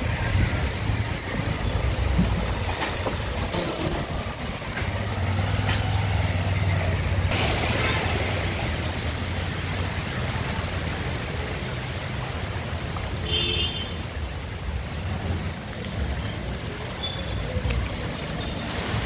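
Cars and motorbikes driving slowly through a flooded street in heavy rain: a steady low engine rumble under the constant hiss of rain and splashing floodwater.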